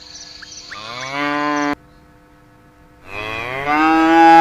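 Cow mooing twice. The first moo rises in pitch and cuts off abruptly a little under two seconds in. A second, longer and louder moo begins about three seconds in.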